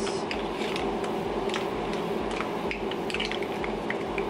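A spoon clinking and scraping against a wok as seafood is stirred and moved around, a quick string of uneven light clicks over a steady hum.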